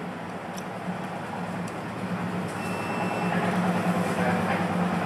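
Induction heating machine running under load as it heats a copper part to brazing temperature: a steady hum over a noisy hiss, growing slightly louder about three seconds in.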